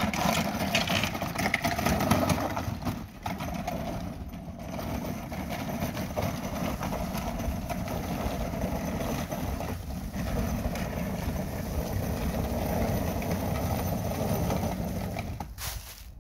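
Ground-penetrating radar cart with seven antenna bays on skid plates and a wheel at each end, pulled by hand over a concrete driveway: a steady scraping rumble that dies away near the end as the cart stops.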